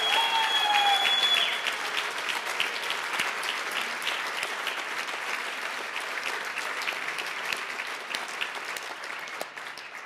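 Dinner audience applauding, dense clapping with a long, high, steady whistle over it during the first second or so. The applause slowly fades toward the end.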